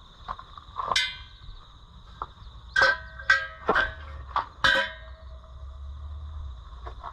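Metal clanking: about six sharp clanks, each ringing briefly, one near the start and a quick cluster in the middle, over a faint steady high-pitched whine.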